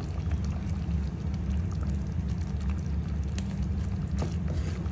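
Steady low hum under faint clicks and sloshing as pomfret pieces are slid into simmering coconut curry in a clay pot and stirred with a wooden spoon.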